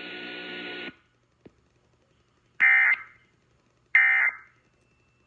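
A steady buzzing hum from the weather radio cuts off about a second in, followed by a click. Then come two short, shrill electronic data bursts about 1.3 seconds apart, with a third starting at the very end. These are the NOAA Weather Radio SAME End Of Message code that closes a broadcast alert.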